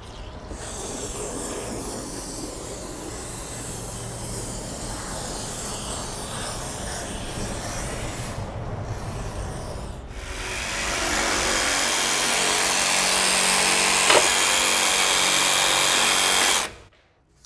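Closed-cell spray foam gun hissing steadily as foam is sprayed into the gap around the curb. About ten seconds in, a louder reciprocating saw starts running, trimming the foam, and stops just before the end.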